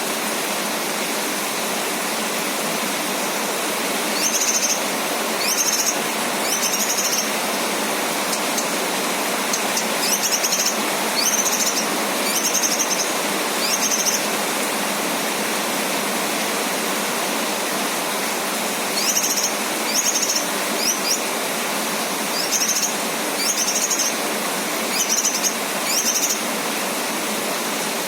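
Male cucak kinoy, a bulbul, giving short high chirping calls in bursts of three to five, over a steady hiss of rain.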